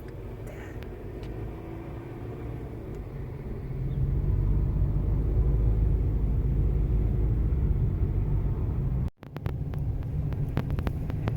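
Car on the road: a steady low rumble of engine and tyres that grows louder about four seconds in. About nine seconds in it breaks off suddenly, and a few short clicks follow.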